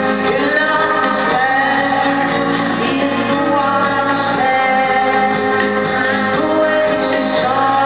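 Live band playing dream-pop in a large hall, a woman singing long held notes over keyboard and guitar, heard from the audience.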